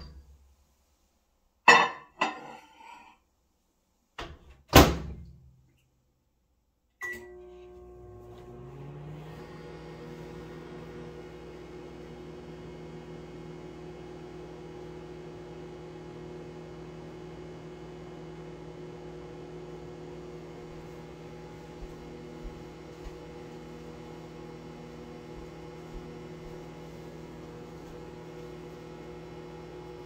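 GE over-the-range microwave oven: a few knocks and a thud as the door is handled, then a short beep about seven seconds in and the oven starts. One tone in its hum rises briefly as it spins up, then it settles into a steady running hum while it heats water.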